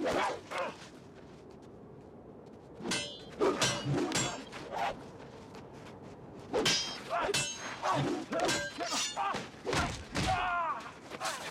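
Sword-fight sound effects: steel blades clashing and ringing, with blows and thuds, in repeated bursts and a short lull about a second in.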